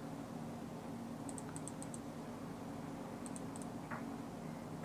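Light clicking at a computer while working drawing software: a quick run of about five short clicks a little over a second in and a few more around three and a half seconds, over a steady low hum.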